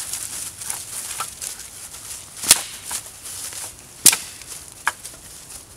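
A dead maple pole cracking and splitting as it is levered against a boot and snapped by hand: two loud, sharp cracks about a second and a half apart, with smaller cracks and the rustle of dry leaves between.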